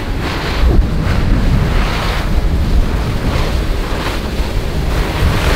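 Wind buffeting the microphone over a steady rush of water spray from a flyboard's jets blasting down into the sea. No engine note stands out.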